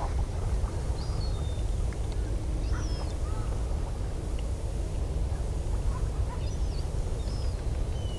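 Seabirds giving a handful of short, scattered high calls over a steady low rumble of wind on the microphone.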